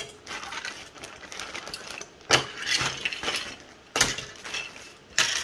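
A plastic zip-lock bag rustling as 3D-printed plastic parts are rummaged through and taken out, with a few sharper knocks and clatters about two and a half, four and five seconds in.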